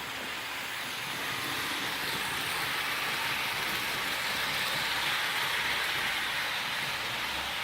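Märklin HO-scale ICE model train running along the track: a steady whirring rumble of its motor and wheels on the rails. It swells gradually louder, peaking a little past the middle, then eases slightly.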